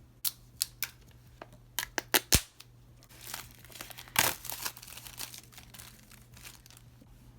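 Handling and opening a cardboard product box: a few sharp clicks and taps, then, about three seconds in, a crinkling, tearing stretch as its paper seal and wrapping are pulled off.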